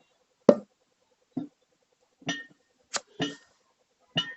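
Tyre beads snapping onto the steel wheel rim as a newly fitted tyre is inflated: six sharp pops with a short metallic ring, irregularly spaced, the loudest about half a second in.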